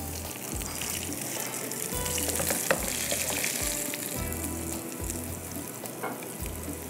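Potato and sesame-seed kababs frying in hot oil: a steady sizzle with fine crackles. There is one short sharp knock about two and a half seconds in.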